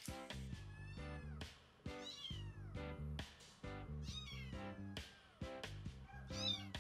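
Kitten meowing repeatedly in short high cries, about one a second and loudest near the end, over background music with steady chords.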